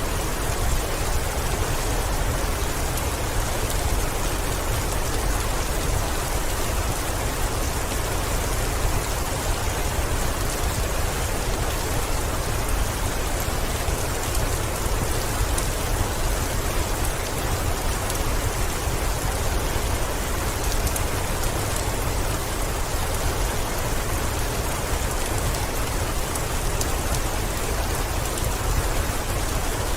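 Heavy rain falling steadily on a window: a dense, even hiss with a deep low rumble beneath it and faint scattered ticks.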